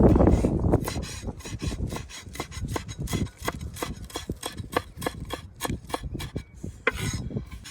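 Quick, repeated scraping strokes, about five a second, with a heavier rubbing sound at the start.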